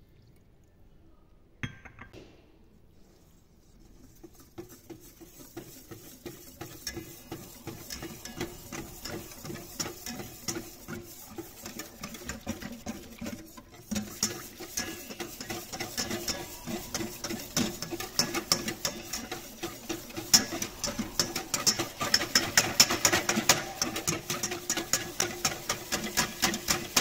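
Wire whisk beating a thin flour-and-water batter in a stainless steel pot: a rapid run of metallic clicks as the wires strike the pot's sides and bottom. It starts a few seconds in and gets louder and faster about halfway through.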